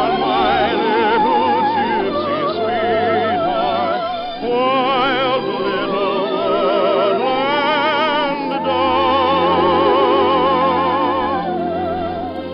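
Operetta singing with orchestra, on an old radio broadcast recording: long held notes with wide vibrato, with brief breaks between phrases about four and eight and a half seconds in.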